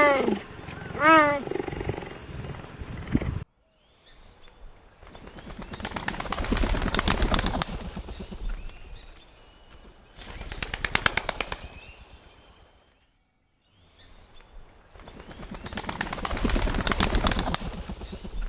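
A big cat's last calls, rising and falling in pitch, end about three seconds in. After a short silence come three long swells of rapid clattering, like birds' wings flapping, each building up and fading away.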